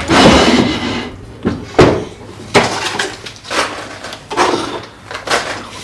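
Wooden drawer in a chest of drawers pulled open and rummaged through: a scraping slide at the start, then knocks and rattles about once a second.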